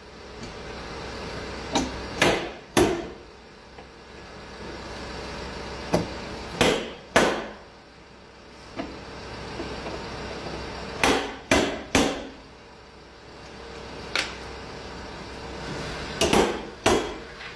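Hammer blows, mostly in quick runs of two or three strikes about half a second apart, with pauses of a few seconds between runs, over a steady low background noise.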